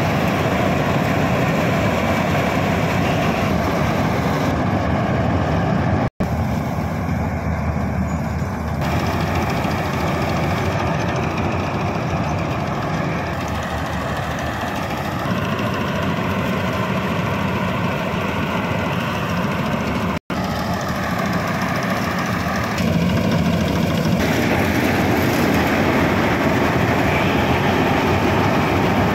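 A John Deere 5075 tractor-mounted combine harvester runs steadily under load while cutting and threshing paddy, its engine and machinery making a continuous dense rumble. The sound cuts out for an instant twice, about 6 s and 20 s in.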